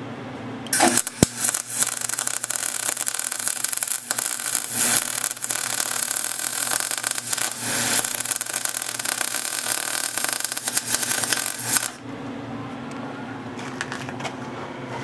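MIG welder arc crackling steadily as a D-shaft is welded into the steering shaft, starting about a second in and cutting off abruptly near the end. A low steady hum is heard before and after the weld.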